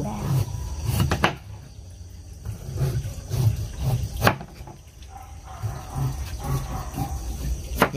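A handful of sharp knocks spread over several seconds, over low rumbling handling noise: a large, hard-skinned old winter melon being cut and handled with a knife.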